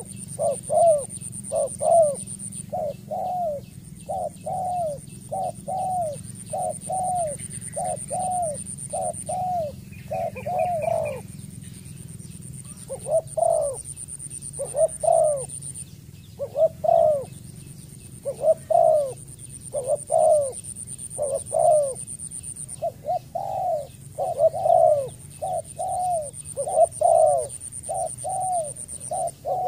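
Spotted dove cooing: short arched coos repeated quickly, about two a second, then slower after a brief pause near the middle, and quickening again near the end. A steady high-pitched whine comes and goes behind it.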